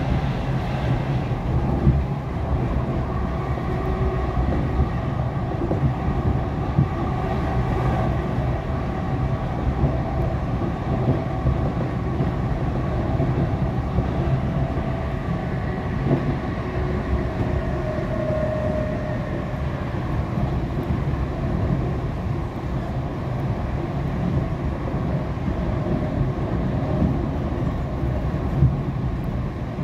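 SWR Class 455 electric multiple unit running at speed, heard from inside the carriage: a steady rumble of wheels on track with the traction motors' whine running through it.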